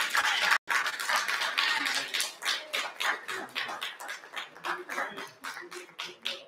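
Applause thinning out into scattered individual hand claps that grow sparser and fainter until they die away near the end, with a brief dropout about half a second in.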